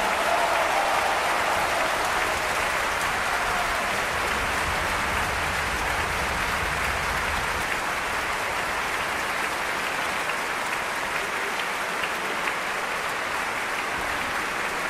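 Concert hall audience applauding steadily.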